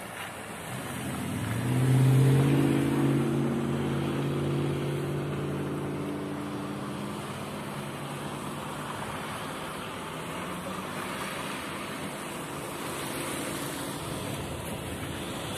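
A car engine's note swells about a second in, is loudest around two seconds and dies away over the next few seconds, leaving steady road and wind noise from the moving car.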